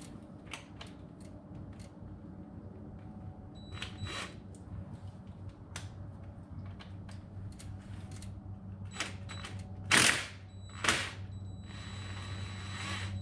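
Scattered metallic clicks and clinks of a wrench working the bolt on a motorcycle's shift lever, with two louder clanks about ten and eleven seconds in and a stretch of scraping near the end, over a steady low hum.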